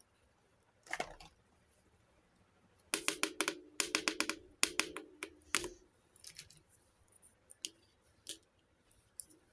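Small plastic pieces and packaging being handled: a single click, then a rapid run of light plastic clicks and crackles lasting about three seconds, followed by scattered lighter clicks.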